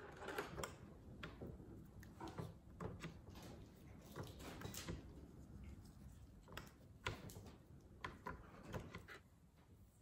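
Plastic lip balm tubes being handled on a pouring tray: scattered small clicks and knocks, a few sharper ones about a second in and around seven seconds in.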